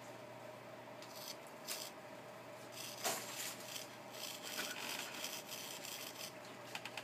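Hobby RC servo on a Spektrum S603 DSMX receiver buzzing and whirring in short jerky bursts as it follows the transmitter stick. A couple of brief bursts come first, then a denser run from about three seconds in. A faint steady hum runs underneath.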